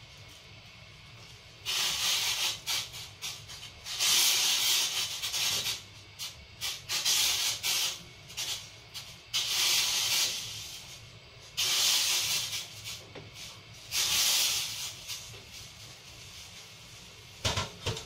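Daikon radish rounds lowered one at a time into a saucepan of hot water, six short splashing hisses a couple of seconds apart as each piece goes in. A single knock near the end.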